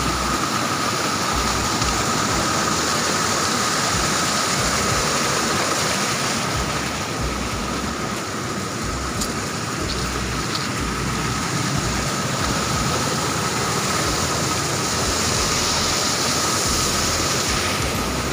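Steady outdoor hiss with wind buffeting the microphone in uneven low rumbles, and a thin steady tone running under it throughout.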